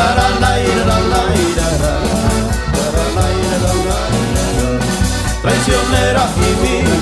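Instrumental band music: an accordion melody over acoustic guitar, bass and drum kit, with a steady beat.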